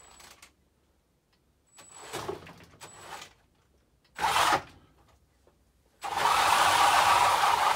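Radio-controlled FTX Outlaw truck's brushed electric motor and drivetrain: a few short blips with a faint high whine, then from about six seconds in a steady, loud whir as the motor is held at throttle. It runs on an old battery that is judged knackered.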